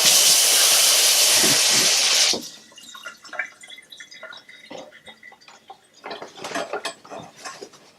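Kitchen tap running into the sink for about two seconds, then turned off abruptly, followed by scattered light clicks and knocks.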